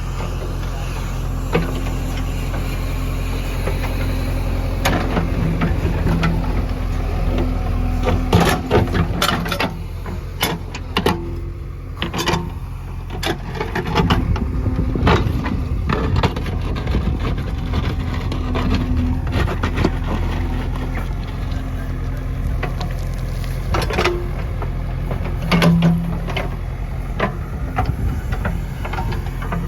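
JCB 3DX backhoe loader's diesel engine running steadily, with a scatter of sharp knocks from the machine at work, bunched in the first half and again about two-thirds of the way through.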